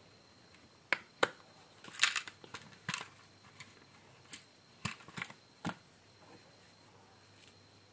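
Scattered sharp clicks and light taps, about a dozen spread over several seconds, with a brief scraping rustle about two seconds in: small tools and parts being handled during a phone repair.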